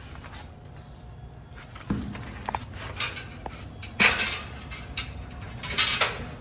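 A handful of irregular knocks and clattering, like hard objects being handled and set down, the loudest about four seconds in, over a low background rumble.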